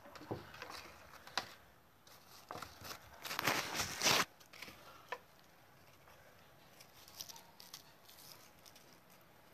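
Rustling and handling noise close to the microphone, with scattered clicks and a louder, longer rustle about three and a half seconds in, then fainter rustles.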